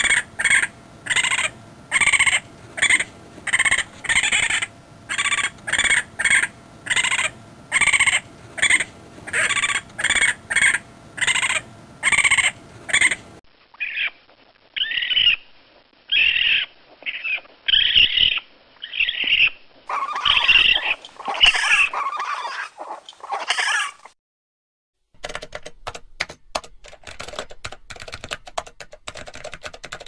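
Raccoon calls: a long run of short chirping calls at about two a second, then another series of chirps and chitters, louder and fuller for the last few seconds. After a moment of silence, rapid clicking like typing on a keyboard.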